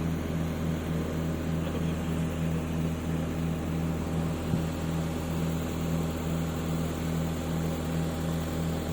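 Steady low mechanical drone of a machine running, with a tone that pulses about twice a second over a constant hum.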